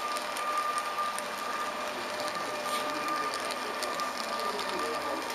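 Small electric motor of an HO-scale model train running with a steady whine, its wheels clicking faintly over the track, heard from on board the moving train.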